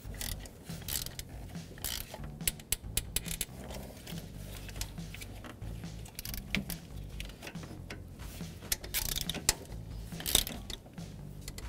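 Hand tools clicking and clinking against metal in irregular, scattered strokes, with two brief louder rattles about nine and ten seconds in.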